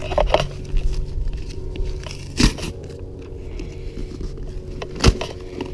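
Corrugated cardboard box being torn open by hand: crackling rips and tearing, with two sharp rips about two and a half and five seconds in.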